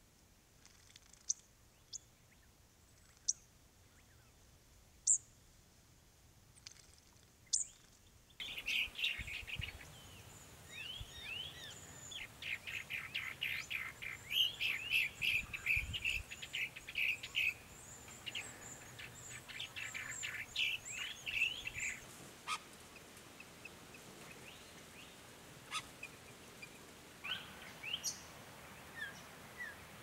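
Wild songbirds calling. A few sharp, high chirps come spaced out over the first eight seconds. Then a dense, rapid chattering of high notes runs for about fourteen seconds and thins to scattered calls near the end.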